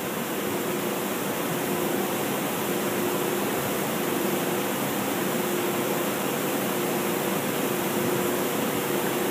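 Steady, even hiss with a faint steady hum under it, from the magnetic-particle inspection bench turning the axle while wet mag solution is sprayed onto its end.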